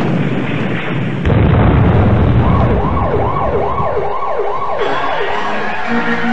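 Explosion sound effects: a heavy rumbling blast about a second in. Soon after, a siren wails quickly up and down, about two and a half times a second, over the rumble for a few seconds.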